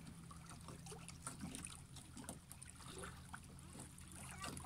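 Faint water lapping and trickling among shoreline rocks, with scattered small clicks and splashes over a steady low hum.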